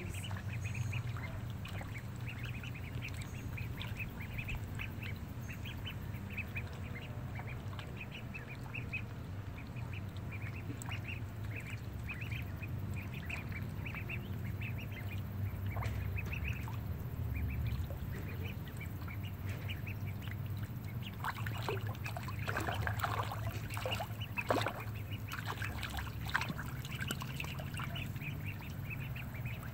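Ducks quacking and chattering in many short, repeated calls, louder and busier in the second half, over a steady low hum.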